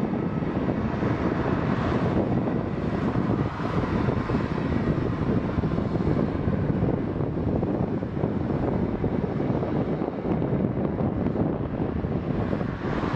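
Jet engines of an Airbus A319 airliner running steadily as the aircraft rolls past on the ground.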